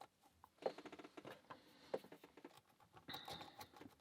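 Faint, rapid metallic clicking and scraping of a rake pick being worked back and forth across the pin tumblers of a Euro cylinder lock.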